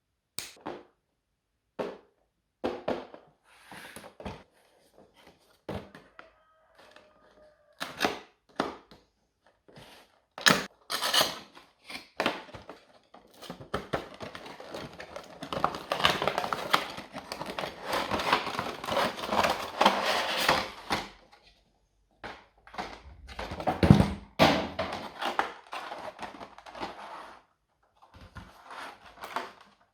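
Packaging being handled and opened: a run of short clicks and taps, then about eight seconds of continuous crackling rustle through the middle, then more knocks, the heaviest a little before the end.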